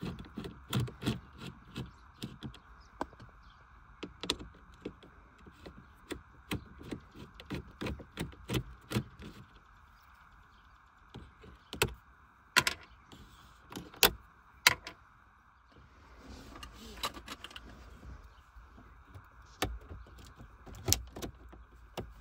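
Irregular clicks and knocks of hand work on a car door's window switch and its plastic trim, several quick ones in the first half and a few louder single knocks later, over a faint steady hum.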